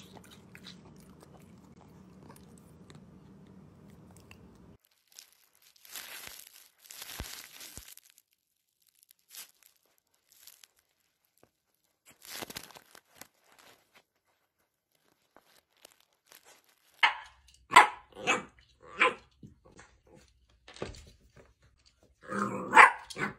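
Dapple miniature dachshund barking at its reflection in a mirror: a quick run of about five sharp barks a little past halfway, then another burst near the end. Earlier come softer scattered rustling and tearing noises as a dachshund shreds a plush toy.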